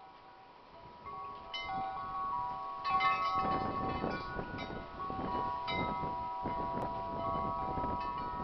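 Wind chimes ringing in gusty wind, several sustained tones struck over and over, busier from about three seconds in as the gusts pick up, with wind rumbling on the microphone beneath.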